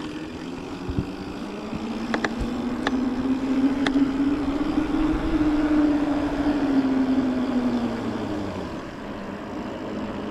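Mountain bike rolling fast on asphalt: the knobby tyres give a steady hum that rises in pitch toward the middle and sinks near the end, over a rushing noise. A few sharp clicks come about two to four seconds in.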